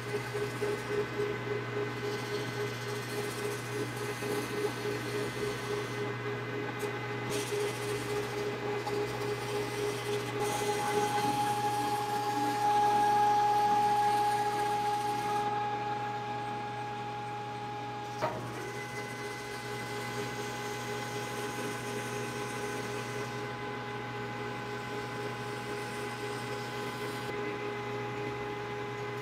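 Metal lathe running, its motor and gearing giving a steady hum with several whining tones. The whine changes pitch about ten seconds in and is loudest soon after, and a single sharp click comes a little past halfway.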